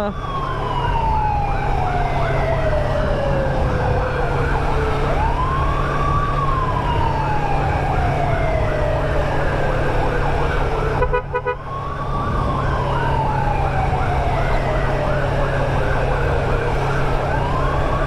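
An emergency siren wailing in slow cycles, each rising quickly and then falling for about six seconds, with a faster repeating chirp layered over it. It breaks off briefly about eleven seconds in, then starts its next sweep. A steady low hum from the motorcycle runs underneath.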